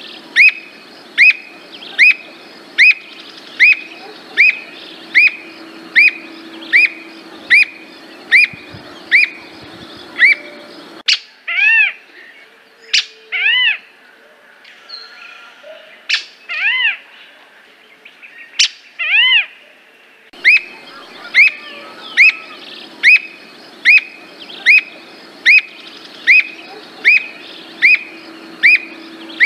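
Squirrel cuckoo calling: a long, even series of sharp, arched notes, about one and a half a second. About a third of the way in the series breaks off for a stretch of fewer, lower, spaced-out notes with a few sharp clicks, then the even series resumes.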